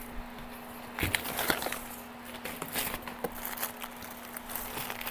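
Unpacking rustle: a cardboard divider sheet and plastic bags being handled inside a shipping box, with scraping and crinkling, loudest about a second in, over a faint steady hum.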